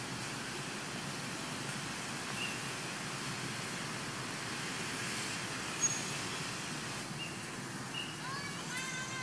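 Steady outdoor hiss with a few faint, short high chirps, and a quick run of short rising calls near the end.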